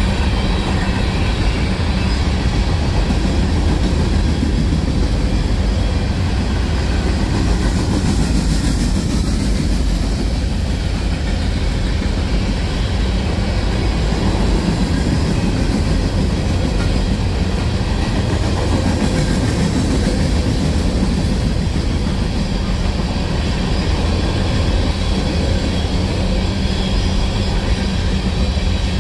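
Train rolling past on the main line, a steady noise of wheels on rail.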